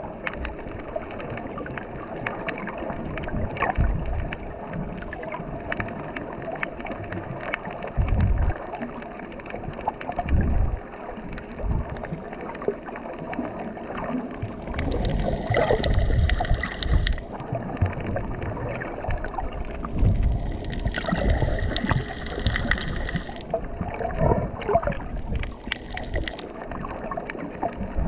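Muffled underwater sound picked up through an action camera's waterproof housing: water noise with irregular low thuds, and two stretches of brighter hiss in the second half.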